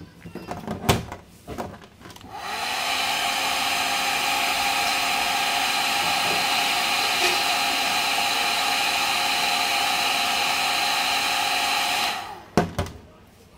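Compact Nova handheld hair dryer blowing hot air onto a phone's back panel: it starts up about two seconds in, runs at a steady pitch for about ten seconds, then cuts off. A few handling clicks and knocks come before it starts and just after it stops.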